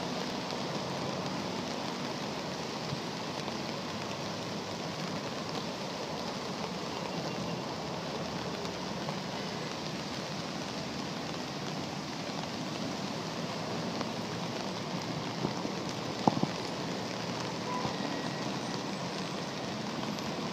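Steady hiss of rain falling on deep street flood water, with a couple of sharp knocks about sixteen seconds in.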